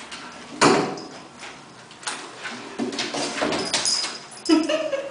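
Wobble board rocking and knocking against a concrete floor as a puppy shifts its weight on it: a series of sharp knocks, the loudest about half a second in and again near the end.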